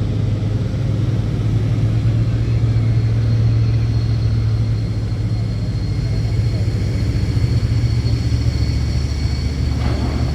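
Engine of heavy mining machinery running steadily with a deep, continuous hum; a thin high whine joins about three seconds in.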